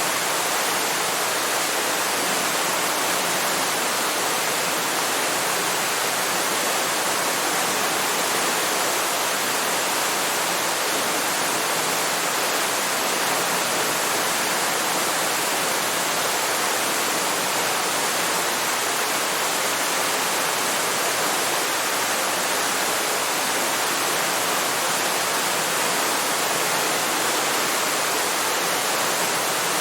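Waterfall: water falling and splashing in a steady, even rush that doesn't change.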